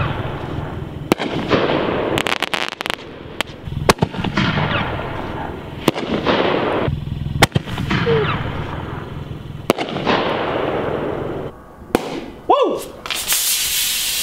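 Consumer aerial fireworks firing, a sharp shot about every two seconds, each followed by hissing and crackling. Near the end a champagne cork pops and the bottle sprays out with a steady hiss.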